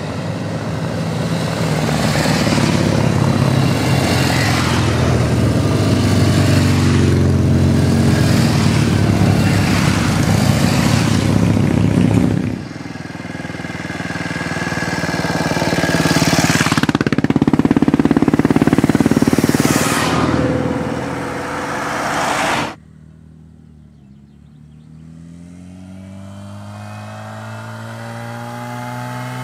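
Norton motorcycles riding past one after another, their engines loud as they pull up the road. The sound cuts off abruptly twice, and near the end a single bike approaches, its engine note rising steadily in pitch.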